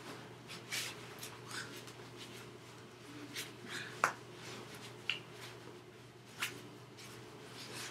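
Soft rustles and light clicks of hands moving, touching and brushing a jacket, with a sharper click about four seconds in and another about a second later, over a steady low electrical hum.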